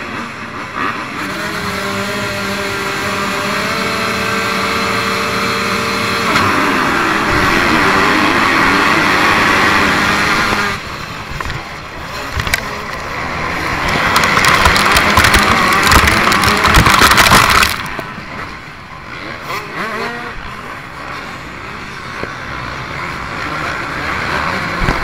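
A pack of motocross dirt bikes racing, heard from a rider's on-board camera. For the first few seconds engines hold steady revs, then about six seconds in the pack opens up to full throttle and it gets much louder. There is a second loud full-throttle stretch in the middle before the sound eases.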